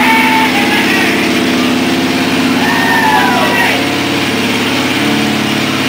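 Custom chopper motorcycle's engine running steadily, loud.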